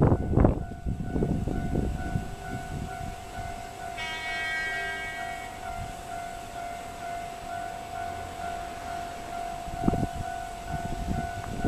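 Train horn sounding one short blast about four seconds in, lasting about a second and rich in overtones, over a long steady tone that continues to the end.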